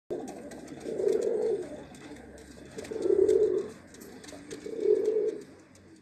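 Fancy pigeon cooing: three low coos, about two seconds apart.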